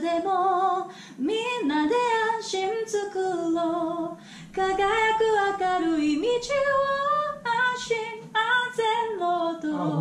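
A woman singing a melody on her own into a studio microphone during a recording take, her voice heard without instruments, in long phrases with short breath breaks.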